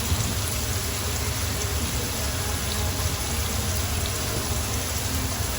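Chicken pieces frying in a pan, a steady sizzling hiss with a low hum beneath.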